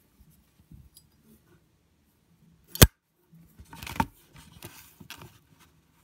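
Chrome Zippo windproof lighter being put back together by hand: a sharp metallic click about three seconds in as the insert goes back into the case and the lid snaps shut, then scraping and a few softer clicks as the lighter is handled and set down in its box.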